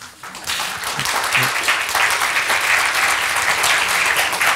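Audience applauding, starting about half a second in and quickly building to steady clapping.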